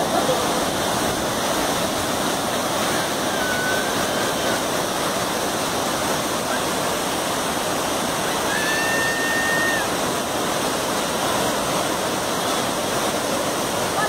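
Large waterfall cascading down a tall rock face into a river pool: a steady, unbroken rush of falling water.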